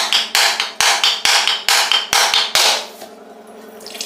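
A whole mature coconut being cracked open by hand with a rusty iron blade: about seven sharp strikes on the hard shell, roughly two a second. Near the end the shell gives way and coconut water starts to trickle out.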